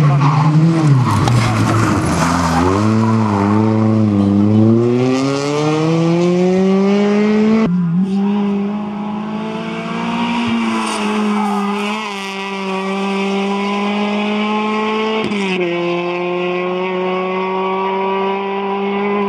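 Renault Clio Williams rally car's 2.0-litre four-cylinder engine driven hard. Its note wavers and dips over the first few seconds, then climbs steadily under acceleration. The pitch drops sharply about eight seconds in and again about fifteen seconds in, as the car shifts up, and climbs again after each drop.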